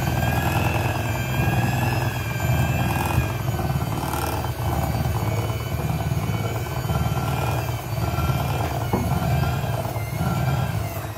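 Electric hand mixer running steadily, its beaters working through thick cookie dough, a continuous motor whir whose pitch wavers slightly as the load shifts.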